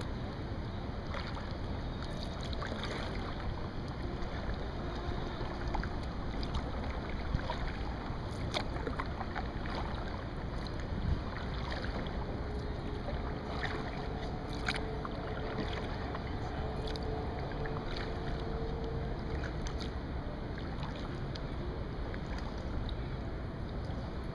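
A kayak moving through calm water: a steady rush of water along the hull, with scattered small drips and ticks from the paddle and boat.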